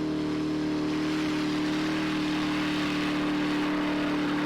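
Koenigsegg supercar engine held at steady high revs, one even drone that neither rises nor falls.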